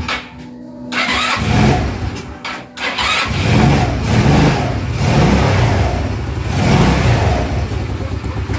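Rossi Venus scooter's GY6 single-cylinder four-stroke engine being started: it catches after a falter about three seconds in, then runs and is revved up and down several times. It runs on a newly fitted 4-pin battery-operated CDI, a sign that the replacement CDI is giving spark.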